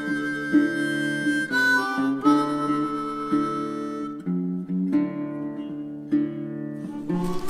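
Background music: an instrumental track with a melody of held notes that changes pitch every second or so over a steady lower accompaniment.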